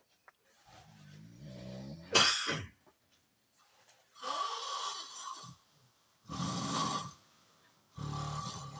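Loud, rough snoring: four rasping snores about two seconds apart, with a sharp snort at the end of the first, about two seconds in.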